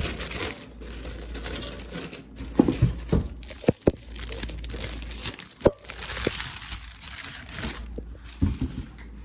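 Clear plastic bag crinkling and rustling as a pot wrapped in it is handled and pulled out of a cardboard box, with a few sharp knocks midway.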